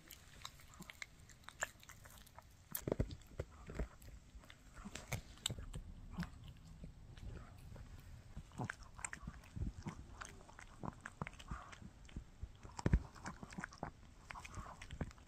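A Shih Tzu chewing a bully stick: irregular quiet crunches and clicks of teeth biting into the dried chew, with a few louder bites.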